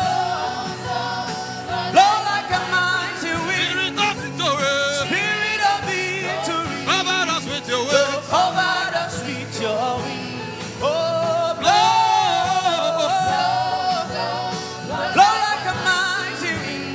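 Gospel worship song: a voice holding long, wavering notes over a steady sustained instrumental backing.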